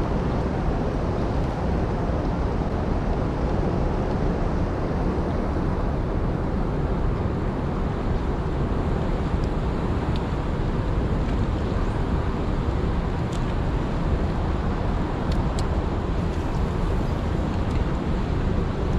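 Steady rushing of water pouring through a dam spillway, an even, unbroken noise.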